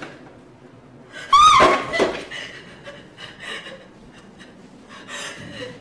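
A young woman's voice breaking into one loud, high-pitched anguished cry about a second in, then sobbing in short broken gasps.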